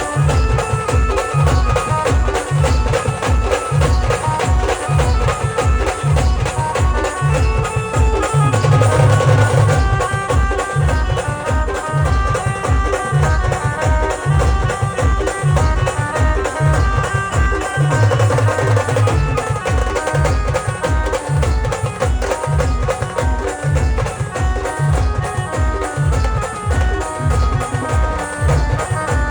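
Maharashtrian band music played live: a fast, steady drum beat of about three strokes a second under a melody line, with heavier low swells twice along the way.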